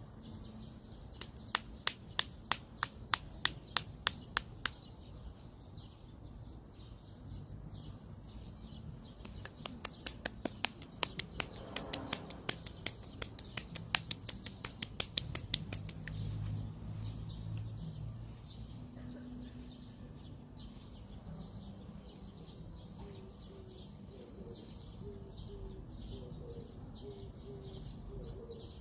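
Two runs of sharp clicks or slaps, about three a second, one near the start and a longer one from about ten seconds in.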